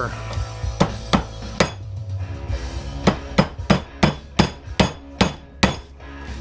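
Hammer blows on a computer power supply's copper-wound transformer to break its steel core apart and free the copper: three strikes, a pause of about a second and a half, then a run of about eight strikes at roughly three a second.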